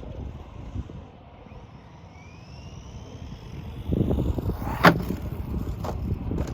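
Electric motor of a 1/12-scale RC monster truck whining up as it accelerates, then its tyres rumbling over dirt and one sharp loud impact about five seconds in as it lands a jump, with a smaller knock a second later.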